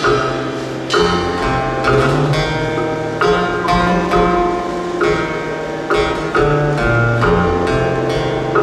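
Live Korean traditional-fusion instrumental music: a run of sharply attacked, plucked-sounding notes over a low sustained bass line, with no singing.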